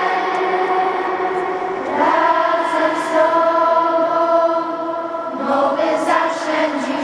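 Youth choir singing sustained notes, the chord changing about two seconds in and again near the end, ringing in the basilica's reverberant stone interior.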